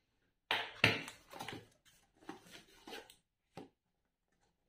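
Cardboard shipping box and the product box inside it being handled and pulled out, a string of short scrapes and knocks, loudest about a second in.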